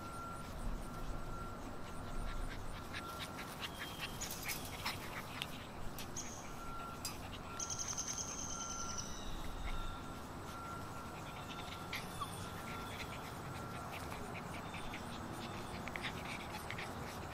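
Six-week-old Alaskan Malamute puppies playing and scuffling in a pen, with many small clicks and taps and a few high squeaky calls around the middle.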